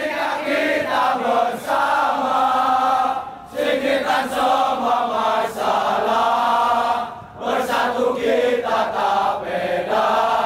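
A crowd of football supporters chanting a song together, many male voices in unison, in long phrases broken by short pauses.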